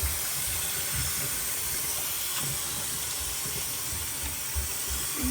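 Tap water running steadily into a sink as toy pieces are rinsed of slime.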